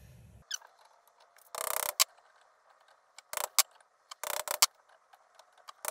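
Sharp metal-on-metal blows, a few at a time with pauses between: a hammer striking a handlebar tube used as a drift to drive a main bearing onto a moped crankshaft.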